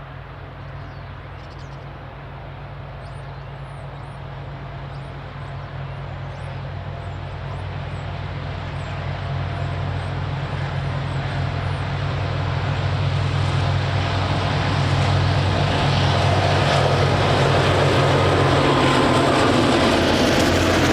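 Diesel-electric locomotive engine of a DC-class loco running under power, a steady low drone that grows steadily louder as it approaches and is loudest over the last few seconds.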